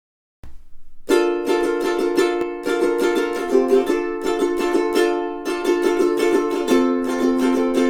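Kala KA-CARA-BUR-T tenor ukulele strummed in a steady rhythm, with the chord changing a few times. Playing starts about a second in, after a brief faint note.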